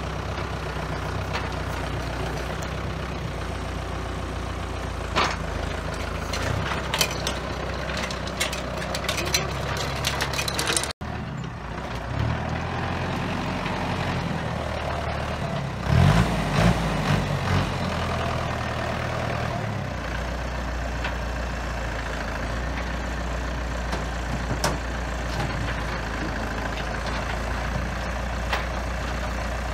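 Tractor diesel engine running steadily under a front-loader log grapple at work, with scattered sharp clanks and knocks from the grapple and log. Around the middle there is a stretch of louder low rumbling with knocks, as the load is lifted onto the truck.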